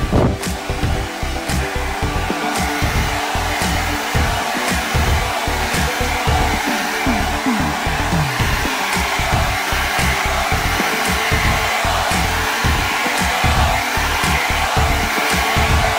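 Handheld hair dryer blowing steadily while drying hair, over background music with a steady beat.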